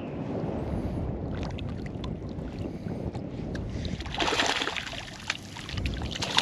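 A hooked flounder thrashing and splashing at the water's surface, in a burst about four seconds in and again near the end, over a steady low rumble.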